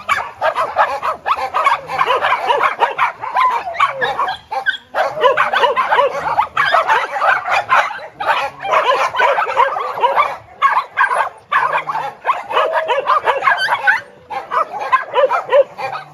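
Many small and medium mixed-breed dogs barking and yipping at once in a dense, overlapping chorus, broken by a few brief lulls.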